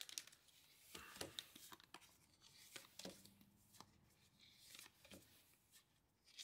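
Near silence broken by faint, scattered clicks and rustles of trading cards and booster pack wrappers being handled.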